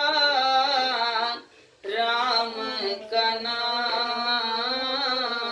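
A woman singing a Hindi devotional bhajan, drawing out long, wavering notes, with a brief pause for breath about a second and a half in.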